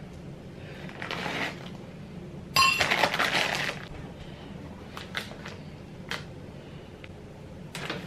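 A metal spoon in a ceramic bowl of oatmeal: a soft scrape about a second in, then one sharp ringing clink about two and a half seconds in, followed by about a second of scraping and stirring. A few faint light clicks come later.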